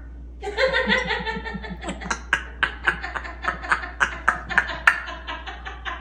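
Laughter: a long run of rapid, repeated laughing pulses, about five a second, starting about half a second in and going on for about five seconds.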